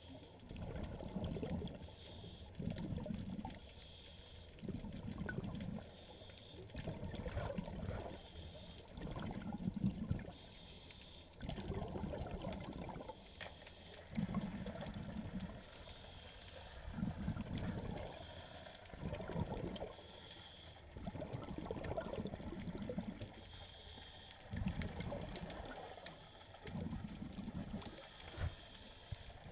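Underwater water noise picked up by a submerged camera: rushes of bubbling, sloshing water that pulse about every two seconds, with a faint hiss between them.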